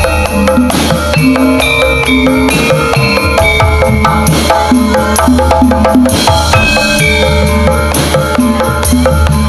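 Lively instrumental Javanese gamelan accompaniment with brisk drumming over a steady deep bass.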